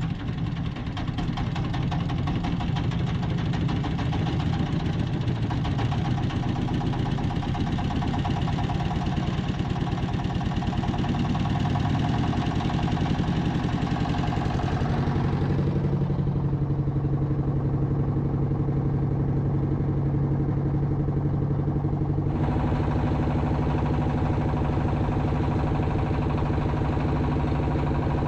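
Engine of a motorised wooden country boat running steadily under way, with a fast even beat. The sound turns duller for several seconds past the middle, then brighter again.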